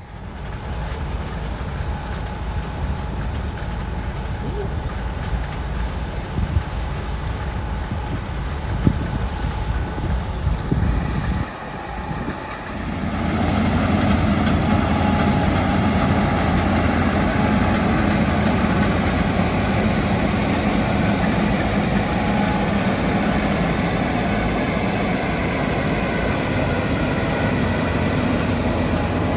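Heavy farm machinery's diesel engine running steadily during wheat harvesting. About eleven seconds in, the sound dips briefly, then returns louder and fuller.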